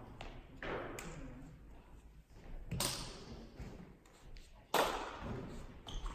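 A few sharp knocks echoing in a large sports hall, the two loudest about three and five seconds in.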